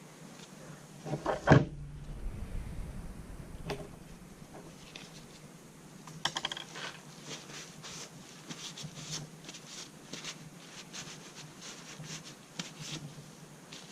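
Parts of a GSG-16 .22 rifle being handled and wiped during cleaning: a loud thump about a second and a half in, then many small clicks and rubbing noises.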